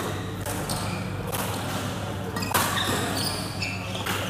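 Badminton rally: sharp racket strikes on the shuttlecock about once a second, the loudest about two and a half seconds in, with shoes squeaking on the court. A steady low hum runs underneath.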